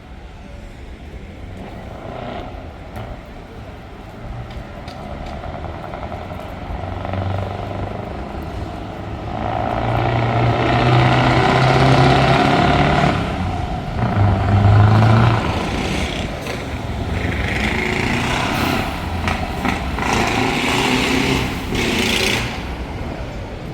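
Open-piped V8 truck engine revved hard again and again, building up over the first ten seconds to its loudest revs around the middle, with further swells before it eases off near the end.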